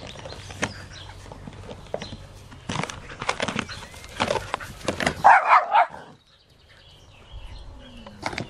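Dogs playing rough over a toy, with scuffling and rustling through the first five seconds and one loud, brief bark about five seconds in. A low wind rumble sits on the microphone.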